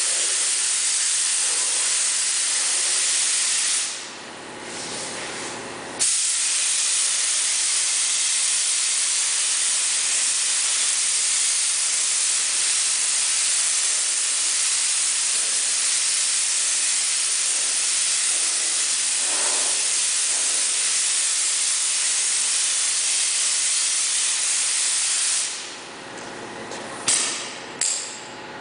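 Compressed-air paint spray gun hissing steadily as it sprays paint onto a car panel. About four seconds in it stops for two seconds, then cuts back in sharply and runs until about three seconds before the end, followed by two short blasts.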